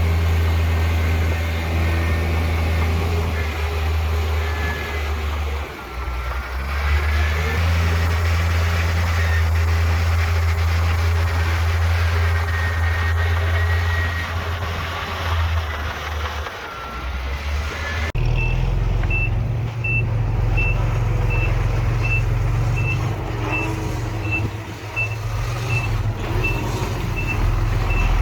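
Heavy diesel construction machinery running loud and steady, with some wavering high squeals in the first part. About two-thirds of the way through the sound changes abruptly, and a reversing alarm starts beeping steadily, about one and a half beeps a second, over the engine.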